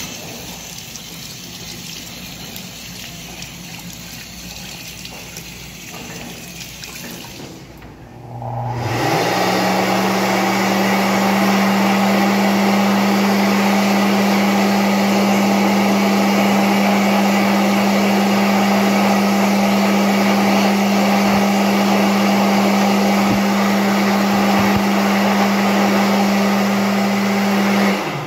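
Water running from an automatic sink faucet over a hand, then a Mediclinics Speedflow hand dryer starts about eight seconds in: its motor spins up within a second to a steady hum over rushing air, and it cuts off near the end.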